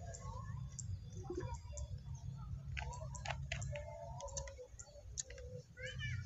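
Plastic bottle handled and its cap twisted, with a cluster of sharp clicks about three seconds in, over a steady low rumble. A short run of chirps comes near the end.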